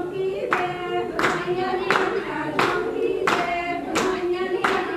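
A group of women singing together to loud, regular hand clapping, about three claps every two seconds.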